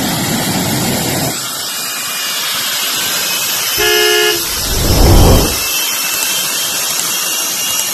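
Jet-powered stretch limousine's jet engine running with a steady hiss, surging in low rumbles at the start and again about five seconds in, the loudest moment. A short car-horn blast sounds about four seconds in.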